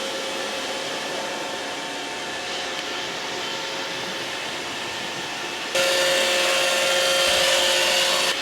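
iRobot Roomba robot vacuum running, a steady motor whine over a brushing hiss. It gets suddenly louder about six seconds in.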